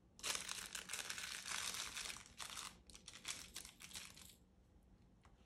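Plastic wrapping crinkling as it is handled: a dense run of crackles that thins out after a couple of seconds and stops about four seconds in.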